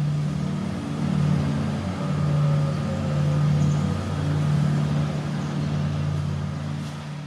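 Federal Signal Modulator 3012 outdoor warning siren at the end of its wail, winding down to a low drone that swells and fades about once a second.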